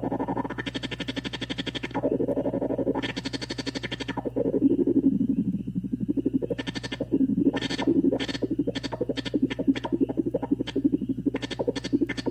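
Homemade pocket drone synth (six square-wave oscillators mixed through XOR gates into a filter with the resonance cranked up) playing a fast-pulsing buzzy drone while its knobs are turned. A resonant tone sweeps about in the low-middle range. Bright hissy bursts cut in and out, two long ones in the first few seconds, then short, rapid ones in the second half.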